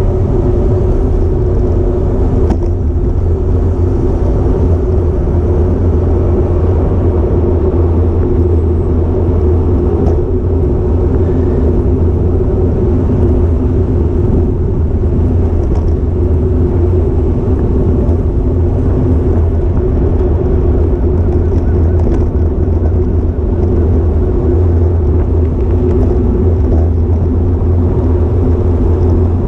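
Steady rumble of wind and tyre road noise picked up by a road bike's action camera while riding at speed, with a low hum throughout.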